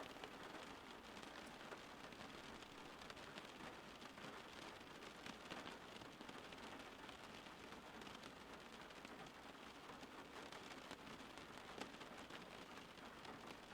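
Steady rain, a soft even hiss dotted with many fine drop ticks.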